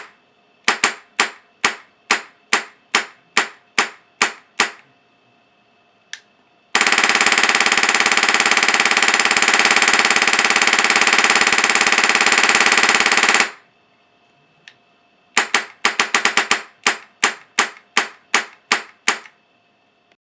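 HPA airsoft gun running on a SPEED HPA Pro regulator at 40 psi, firing: about ten sharp semi-auto shots, then a full-auto burst of about seven seconds, then a faster string of about a dozen semi-auto shots near the end. The quick, even follow-up shots show the regulator's fast refresh rate.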